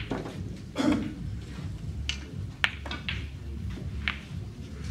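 Snooker balls clicking as they strike one another and the cushions, a few short sharp clicks with the sharpest about two and a half seconds in, over a low steady hum.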